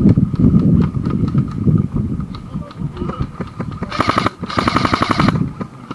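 Airsoft electric rifle firing on full auto: a short burst about four seconds in, then a longer burst of about a second, with another brief burst right at the end. The first couple of seconds hold a low rumbling noise.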